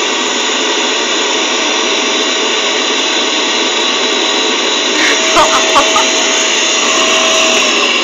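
Vacuum cleaner running steadily with a high motor whine as it cleans out a guinea pig cage, then switched off near the end, the whine dropping in pitch as the motor winds down.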